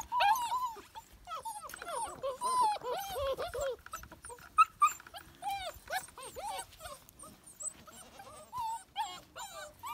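Six-week-old livestock guardian dog puppies whining and yipping: many short cries that rise and fall, overlapping thickly in the first few seconds, then coming more sparsely.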